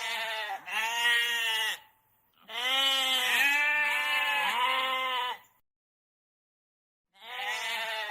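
An animal calling in a run of drawn-out, wavering calls: two short calls, then a long one of about three seconds, then a pause and another call starting near the end.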